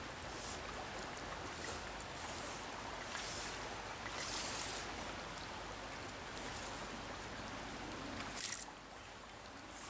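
River water running steadily, a continuous rushing hiss from a river still running above its normal level. A few brief louder hisses come about three and four seconds in and again near the end.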